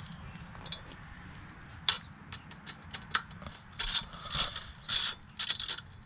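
Hand socket ratchet clicking in short runs, turning a bolt on a motorcycle's plastic radiator cover.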